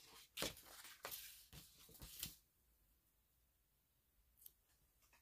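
Paper sticker sheet being handled during paint-by-sticker work: a run of short crackles and rustles in the first two seconds or so, then near silence with one faint click near the end.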